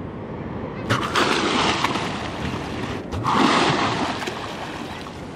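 A dolphin surfacing twice close by, each time a loud rush of splashing water and breath, about one second and about three seconds in, the second louder.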